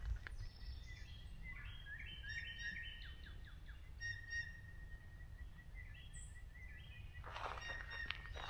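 Woodland birds singing: twice a run of short notes climbs stepwise in pitch, with a long held whistled note between them. Footsteps on a forest trail pause at the start and resume near the end.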